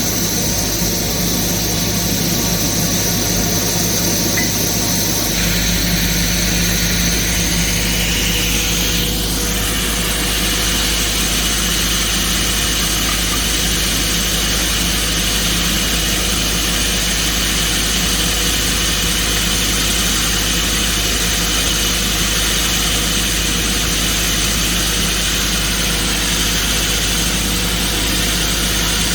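Excavator engine and hydraulics running steadily under load, driving an automatic rock core drill as it bores into rock. The pitch of the running shifts slightly about five seconds in and again around nine seconds in.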